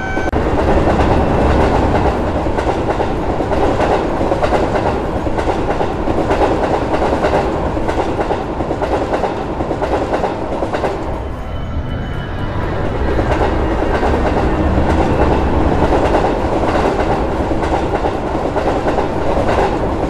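Train passing: a steady rumble of wheels on rails with the clickety-clack of rail joints. It dips briefly about eleven seconds in, then builds again.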